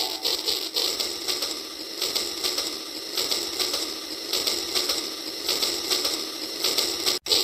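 Toy train's small electric motor and gears running as it travels along its plastic track, giving a steady mechanical whirr and rattle.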